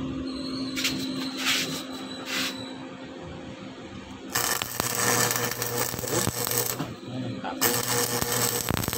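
Arc welding on the seized pulley bearing housing of a car aircon compressor, done to free a housing that stayed stuck when the bearing was pulled. A few short crackling bursts come about a second in, then two longer spells of welding from about four seconds in, with a brief break between them.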